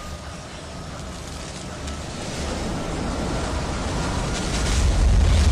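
Deep, noisy spaceship rumble from a cartoon sound effect, swelling steadily louder and heaviest near the end.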